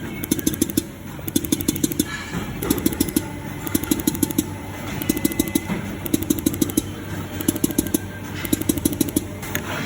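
Automatic silicone dispensing machine running, its motors buzzing in short rapid bursts a little over a second apart while it micro-injects liquid silicone into the mold.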